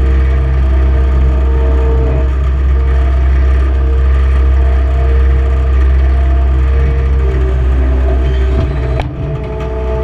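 Skid steer loader's engine running loud and steady from inside the operator's cab, with a steady whine over the low rumble. Near the end a sharp click comes, and the engine note briefly dips before picking back up.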